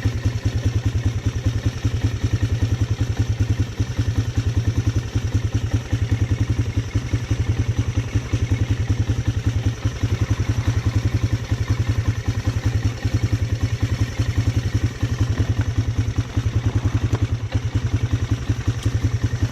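Polaris Sportsman 300 single-cylinder four-stroke ATV engine idling steadily, with an even run of rapid exhaust pulses.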